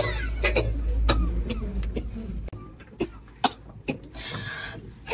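A person coughing in a string of short, harsh fits, loudest at first and growing fainter.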